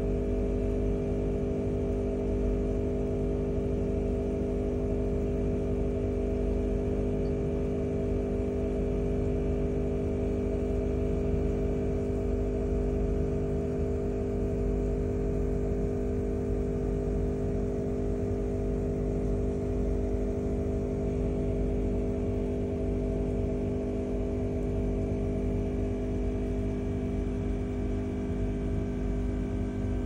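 Aquarium aeration running steadily: an air pump hums with a constant tone while air bubbles up through the tank.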